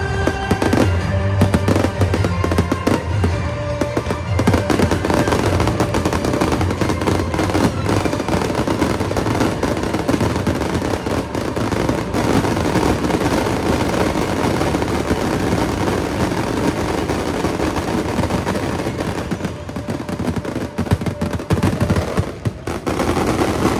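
A rapid, continuous barrage of aerial firework shells bursting and crackling. Music plays underneath, its held notes clearest in the first few seconds.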